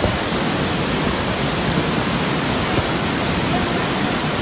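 A waterfall in flood: swollen, muddy water pouring down a rocky cascade in a loud, steady rush.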